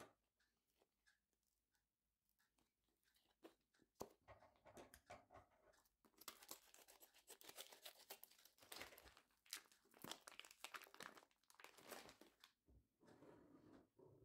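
Faint crinkling and tearing of a clear plastic meat pack being cut open with scissors and peeled away from raw duck pieces, in many small irregular crackles that start about three and a half seconds in.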